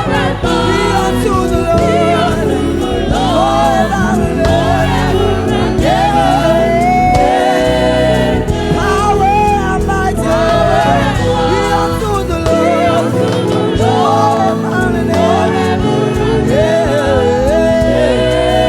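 Gospel vocal group singing in harmony with a live band, several voices carrying bending melodic lines over steady accompaniment.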